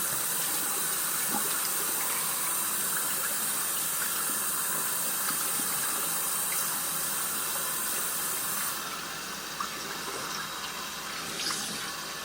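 Water running steadily from a tap into a sink as shaving-soap lather is rinsed off the hands. The stream becomes quieter and duller about nine seconds in.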